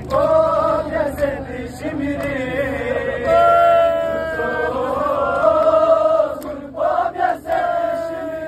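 Men's voices chanting a noha, a Shia mourning lament for Muharram, in long drawn-out notes that slide slowly in pitch.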